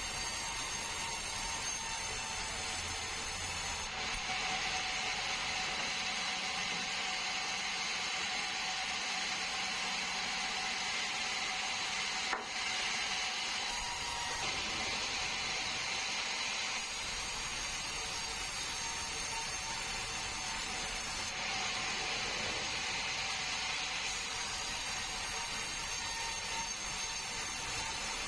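Sawmill blade cutting through a bengkirai hardwood log, a steady rasping saw noise that shifts in character every few seconds, with one sharp click about twelve seconds in.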